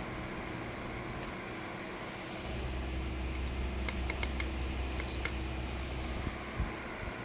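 Wall-mounted electric fan running with a steady hum that grows louder about two and a half seconds in and drops back near the end, with a few sharp clicks and one short high beep in the middle.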